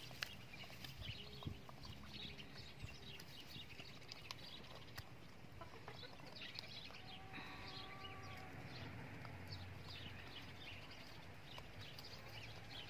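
A hen pecking at a tomato held in the hand: a scatter of faint, irregular taps.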